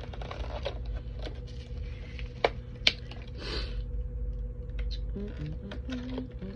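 Clear plastic packaging being handled and picked at with the fingers: scattered clicks and crinkles, with two sharp clicks about two and a half and three seconds in and a short rustle just after.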